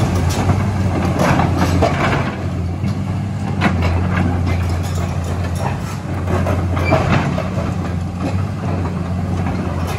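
Komatsu PC200 hydraulic excavator's six-cylinder diesel engine running under load with a steady low drone, while the machine swings its boom and lifts its tracks. Irregular metal clanks and clicks from the undercarriage and linkage sound through it, the sharpest about a second and a half, three and a half and seven seconds in.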